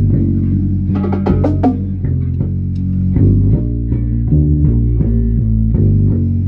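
A band playing: bass guitar and guitar carrying a moving low line, with drums.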